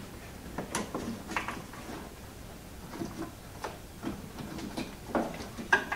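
Light plastic clicks and knocks as a snowblower's electric-starter push-button switch housing is worked apart by hand, with a couple of sharper clicks near the end.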